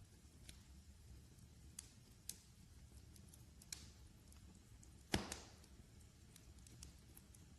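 Wood fire crackling softly: scattered sharp ticks over a low, steady rumble, with one loud pop about five seconds in.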